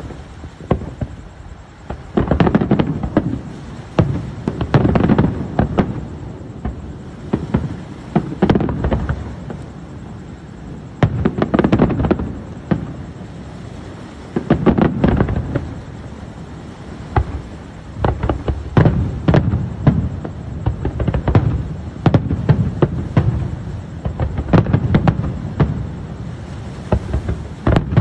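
Fireworks display: aerial shells bursting in volleys, many sharp bangs and deep booms in quick succession, the volleys coming every two to three seconds.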